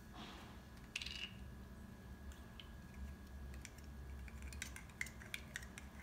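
Faint clicks and taps of a small plastic paint pot and its cap being handled and tapped over a plastic tub, one sharp click about a second in and the clicks coming more often near the end.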